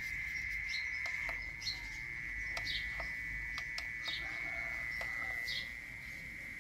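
Recorded mole cricket call played back from a smartphone as a lure sound: one steady, unbroken high trill. A few light clicks of buttons being pressed on the horn loudspeaker's panel sound over it.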